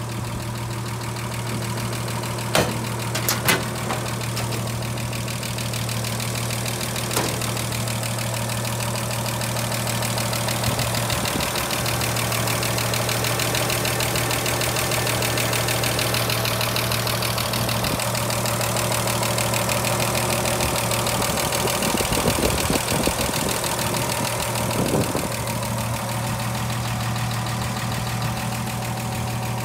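1932 Chevrolet's 194 ci inline-six idling steadily, with a few sharp clicks in the first seven seconds and some irregular knocking noise a little over two-thirds of the way through.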